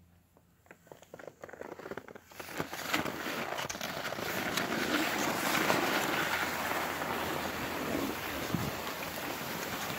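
Skis sliding over packed snow: scattered crackles at first, settling a couple of seconds in into a steady scraping hiss full of small clicks.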